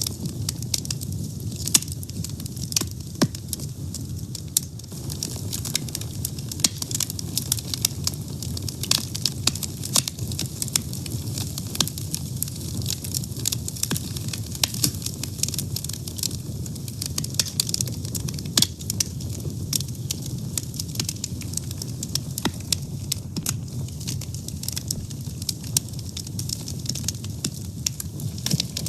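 Wood fire burning with a steady low rush and frequent sharp, irregular crackles and pops.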